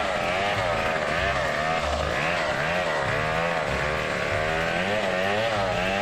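Two-stroke chainsaw engine running, its pitch wavering up and down about twice a second.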